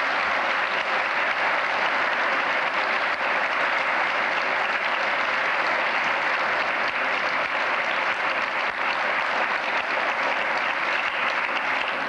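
A congregation applauding steadily in a church, a dense, even clapping that holds for about twelve seconds and fades out near the end.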